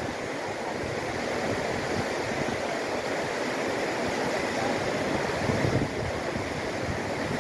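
River rapids rushing steadily over and around boulders.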